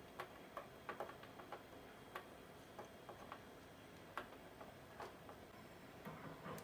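Faint, irregular light clicks and taps, a dozen or so scattered over several seconds, from hands handling a soldering iron and small electronic parts such as a rocker switch with diodes soldered to it.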